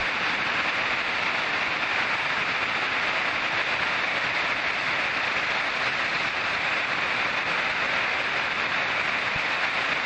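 Heavy rain falling steadily, a constant even hiss heard from inside a barn.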